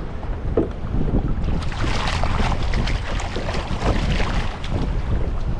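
Strong wind buffeting the microphone as a steady low rumble, with water splashing and lapping against a kayak through the middle.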